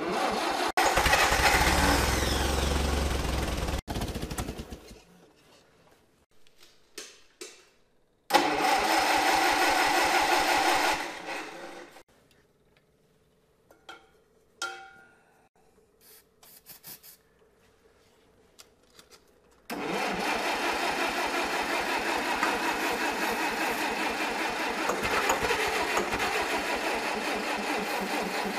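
Gasoline engine of an old Allis-Chalmers forklift being started cold on starter fluid: it is cranked and fires for a few seconds, dies away, fires again briefly and fades out, then cranks or chugs steadily for the last several seconds. This is a hard start: the engine won't keep running on its own.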